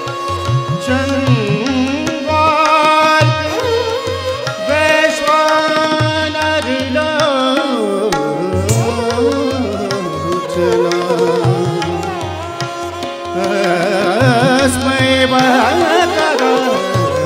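Live Hindustani classical accompaniment for Kathak dance: a singer's gliding, ornamented melody over a held drone, with tabla keeping a steady run of strokes underneath.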